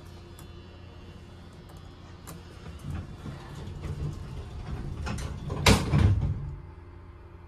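Modernized elevator's car doors sliding open and closing again, with a loud clunk about six seconds in as they shut, over the car's steady low hum.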